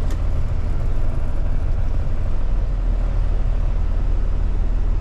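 Rollback tow truck's engine running at low speed, a steady low drone, as the truck is backed into position to load a car.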